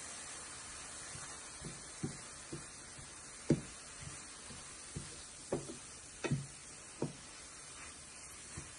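Wooden spatula knocking and scraping against a stainless steel frying pan while stirring sliced mushrooms and chopped greens, with about ten irregular taps, the loudest about three and a half seconds in. Under it, a faint steady sizzle of the vegetables frying.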